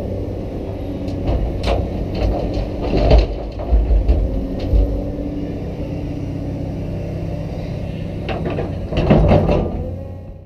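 Cat 320DL excavator's diesel engine running steadily, with a run of clunks and rattles from the bucket and falling dirt and rock between about one and five seconds in, and again near the end.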